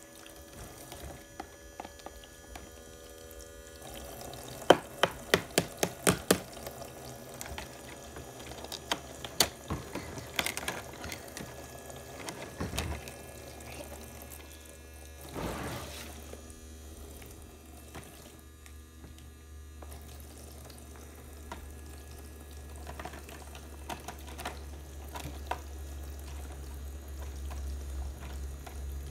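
Water running from a toy play sink's faucet into its plastic basin, with sharp clacks of small plastic dishes being knocked together and set down, in a quick run about five seconds in and again around ten seconds.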